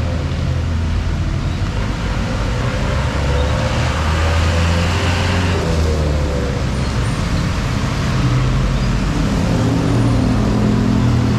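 Road traffic on a wet street: a motor vehicle's engine running close by with a low rumble over a steady hiss.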